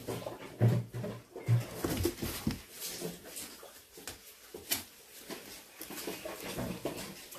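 Kittens wrestling and scrambling on cardboard boxes: scuffling with scattered light thumps and taps, and one sharp tap about halfway through.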